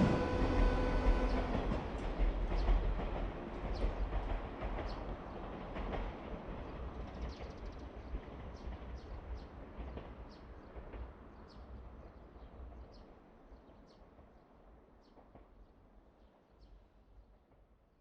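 A train moving away, its rumble and the clicking of its wheels fading steadily into the distance. A steady high tone with overtones cuts off about a second in.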